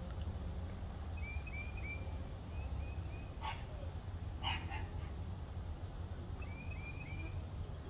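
Small birds chirping in short quick phrases of two or three notes, repeated several times, over a steady low rumble. Two short harsh calls about a second apart cut in near the middle.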